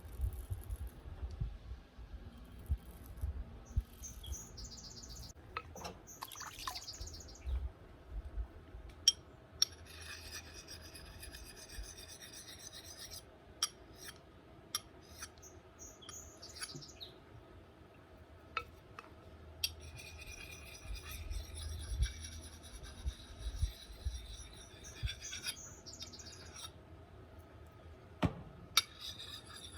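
Freshly sharpened axe blade shaving face stubble: dry, crackly rasping scrapes in spells, the longest about ten seconds in and again past the twenty-second mark, with scattered sharp clicks between strokes.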